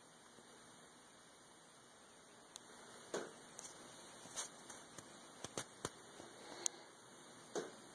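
Faint steady hiss and hum of the recording, then from about two and a half seconds in a scatter of short clicks and brief rubbing sounds from the camera being handled and moved about.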